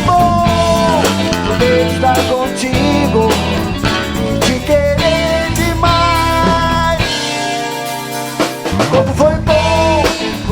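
Band music played live by a trio of guitar, bass guitar and drum kit, with a pitched melody line over the top. The bass and drums drop out for a moment about seven seconds in, then come back.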